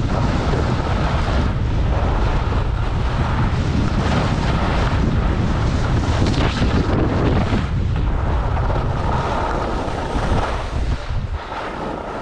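Wind buffeting the microphone of a skier's camera at speed downhill, a heavy rumble mixed with the hiss of skis sliding on packed snow. It eases off near the end as the skier slows to a stop.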